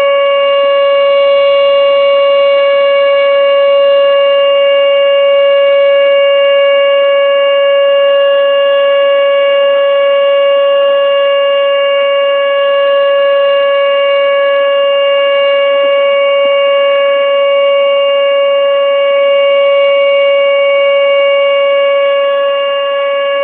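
Outdoor tornado warning siren sounding its weekly test: a loud, unbroken tone held at one pitch, with no rise or fall.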